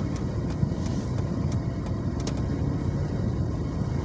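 Road and engine noise of a car being driven, heard from inside the cabin: a steady low rumble with a few faint scattered clicks.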